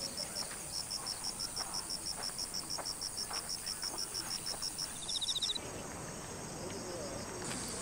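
Cicadas and other insects calling in summer vegetation: a rapid high pulsing chirp, about six a second, over a steady high hiss, with a short buzzy trill just after 5 s. A little past halfway the sound switches abruptly to a quieter, steady insect hiss.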